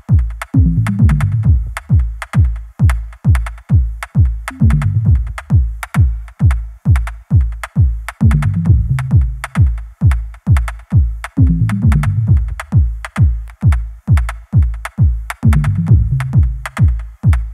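Electronic dance music with a steady, driving kick drum of about two beats a second and a repeating bass line.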